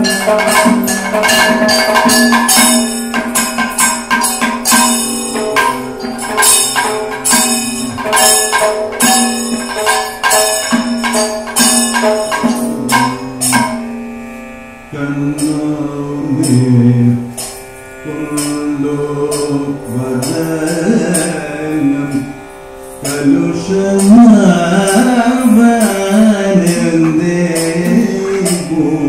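Kathakali accompaniment: rapid maddalam drum strokes with ringing cymbals, then about halfway the drumming thins and a singer's voice carries the melody over the percussion.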